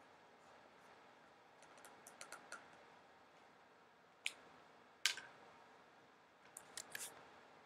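Faint scratching of a marker pen signing a cardboard box, then a few sharp clicks and taps of the pens being capped and set down on the table, the loudest about five seconds in and a short cluster near the end.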